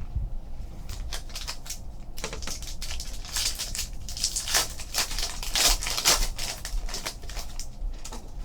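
Foil wrapper of a trading-card pack being torn open and crinkled, a rapid run of crackles that is busiest in the middle.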